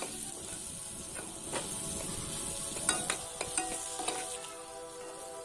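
Steel ladle stirring and scraping a tomato and potato masala frying in a kadai, with the oil sizzling and a few sharp clinks of the ladle against the pan.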